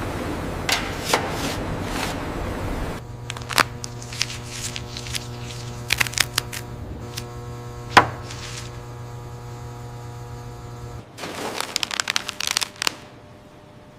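Factory machinery: a steady mechanical hum with scattered sharp clicks and knocks. The background changes abruptly twice, and a quick cluster of clicks comes near the end.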